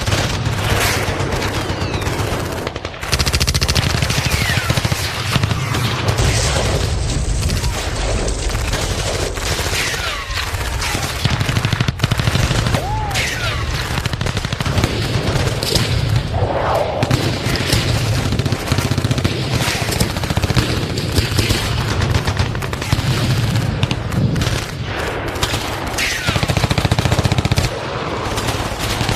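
Battlefield sound effect: dense, continuous machine-gun and rifle fire, with heavy low booms underneath.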